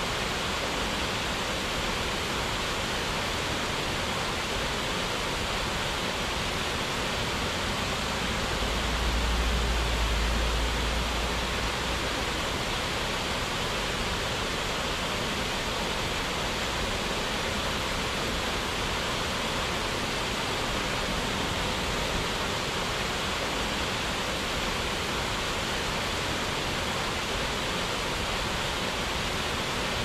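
Steady, even rush of falling water from a waterfall. A low rumble swells briefly about nine to twelve seconds in.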